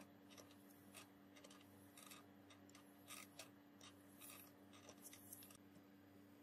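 Faint scraping strokes of a steel katana blade rubbed back and forth on wet 3000-grit sandpaper, about two short scrapes a second, hand-polishing the blade at a fine grit; the strokes stop shortly before the end. A faint steady hum lies underneath.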